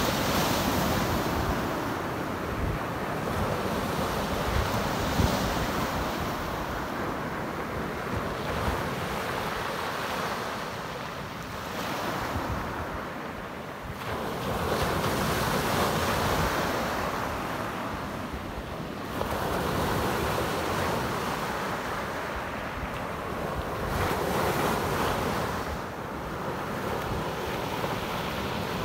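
Small waves breaking and washing up a pebble beach, the surf swelling and easing every few seconds. Wind rumbles on the microphone underneath.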